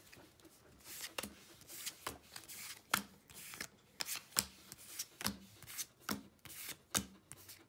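Pokémon trading cards flicked through one by one, each card sliding off the stack with a short papery swish, irregularly, about one or two a second.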